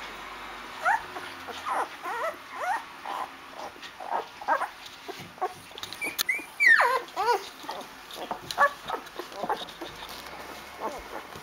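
Eight-day-old Rhodesian Ridgeback puppies whimpering and squeaking in a quick string of short high calls, with one longer whine falling steeply in pitch about halfway through.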